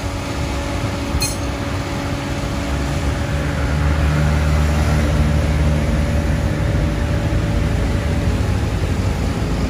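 Dump truck's diesel engine running under load as its hydraulic hoist raises the bed to dump sand. The low hum grows louder about three seconds in and eases off near the end.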